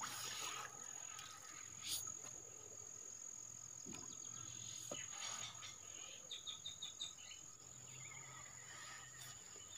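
Faint, steady high-pitched insect trill, with a quick run of about five short chirps a little past six seconds in.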